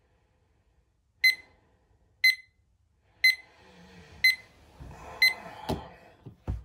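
Digital alarm clock beeping, five short high beeps about a second apart. Bedcovers then rustle, and there are a couple of knocks near the end as a hand slaps the top of the clock to stop the alarm.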